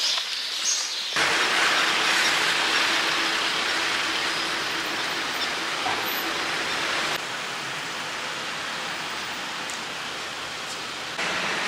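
Steady city street noise with traffic. The background changes abruptly about a second in, about seven seconds in, and again near the end.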